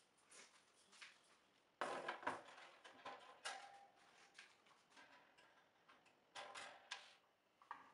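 Wire parts of an IMAC Cova 42 birdcage clinking and rattling against each other and the plastic base as the cage is assembled and a wire divider is fitted. It comes as scattered light clicks, with a louder clatter about two seconds in and another near the end.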